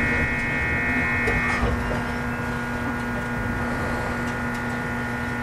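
JR West 521 series electric train, heard inside its KuMoHa 521-53 motor car while running: the steady multi-tone hum of its Toshiba IGBT VVVF inverter and traction motors over a low running rumble, with the highest tones dropping out about one and a half seconds in.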